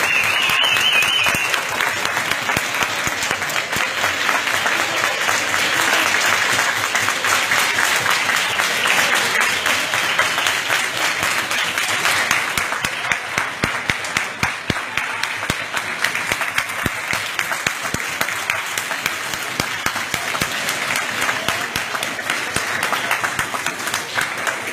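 A large crowd clapping continuously in a big echoing hall, with voices shouting through it, as a noise-making protest. The clapping grows more distinct in the second half.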